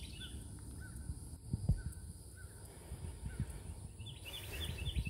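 Birds calling in short repeated chirps, over a low, gusty rumble of wind buffeting the microphone, with the strongest thumps about two seconds in and near the end.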